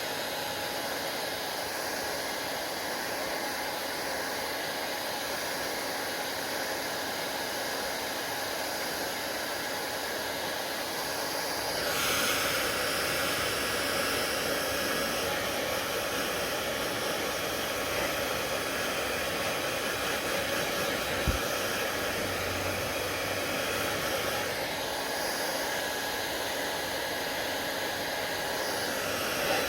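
Hair dryer blowing steadily; about twelve seconds in its rush gets louder and more hissy. A single short click comes about twenty-one seconds in.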